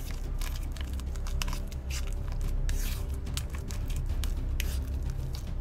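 Green fluffy shaving-foam slime being squished and worked, giving a run of short sticky wet crackles and pops, with background music underneath.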